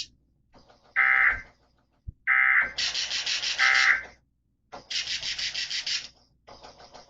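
NOAA Weather Radio SAME digital data bursts: a series of harsh, buzzing bursts of about half a second to nearly two seconds each, separated by short gaps. They are the end-of-message code that closes the Required Weekly Test broadcast.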